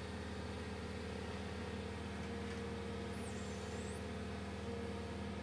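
Hydraulic excavator's diesel engine running steadily as it holds and swings a shoring panel on its chain.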